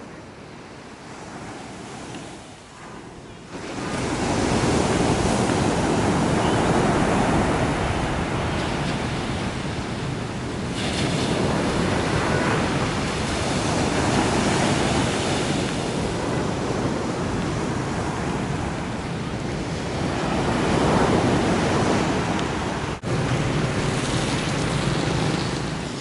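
Heavy, storm-driven surf: big waves breaking and washing up the beach. The sound is softer at first and turns loud about four seconds in, then rises and falls with each wave.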